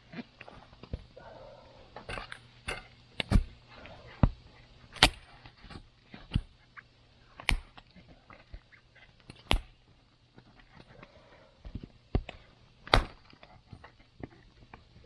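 Wood campfire crackling: sharp, irregular pops and snaps, about one or two a second, some much louder than others, over a faint steady hiss.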